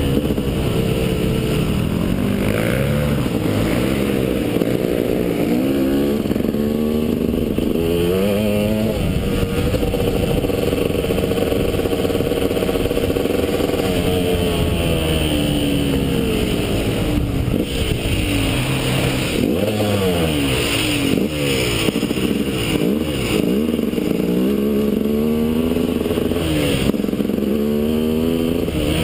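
KTM EXC enduro motorcycle engine, heard from the rider's helmet camera, revving up and easing off again and again as the bike is ridden along a dirt track, with a steadier cruising stretch in the middle.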